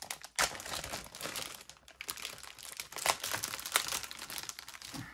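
Plastic bag around plastic model-kit sprues being opened and handled, giving irregular crinkling and crackling with a sharp snap about half a second in.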